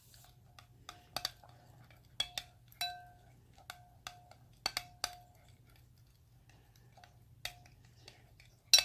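A spoon clinking irregularly against the side of a bowl while stirring glue and food colouring for slime, about a dozen light strikes, each ringing briefly.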